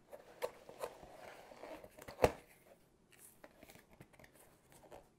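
Cardboard packaging of a diamond painting kit box being handled and opened: rustling and scraping with a few light taps, and one sharp loud knock a little over two seconds in.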